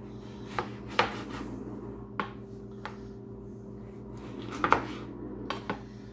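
Chef's knife slicing a lemon on a plastic cutting board: a run of sharp, uneven knocks as the blade comes down on the board, the loudest about a second in and a pair a little after the middle. A steady low hum runs underneath.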